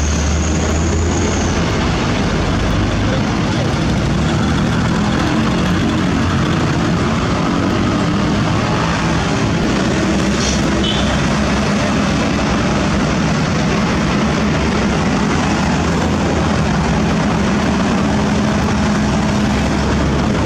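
Heavy diesel road-milling machinery and trucks running together in a loud, constant low drone under a steady roar, with a brief high-pitched chirp about halfway through.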